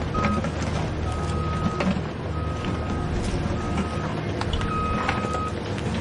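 Heavy diesel engine of an excavator or truck running steadily, with a high-pitched warning alarm beeping roughly once a second in beeps of uneven length, and scattered metallic knocks and clanks.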